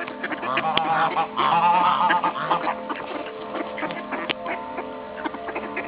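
A flock of waterfowl calling: wavering honking calls in the first two seconds, then scattered shorter calls and small clicks.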